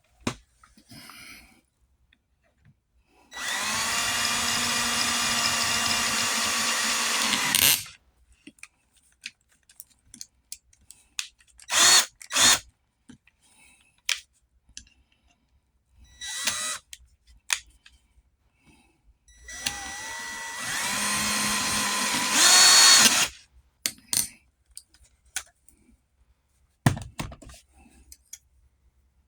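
A power drill running in bursts: one steady run of about four seconds, a few short spurts, then a second run of about four seconds that speeds up near its end, with clicks and knocks of handling in between.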